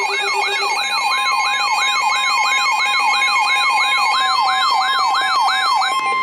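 Electronic siren sweeping quickly up and down, about three times a second, over steady pulsing beeps. A steady single-pitch alert tone comes in about a second in and holds on after the siren and beeps stop near the end.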